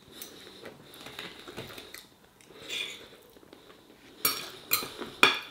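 Metal knife and fork scraping and clinking against a plate while cutting food, with a few sharper clinks near the end.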